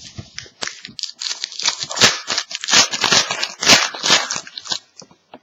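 A hockey card pack's wrapper being torn open and crinkled: a dense, irregular run of crackling tears that stops about five seconds in.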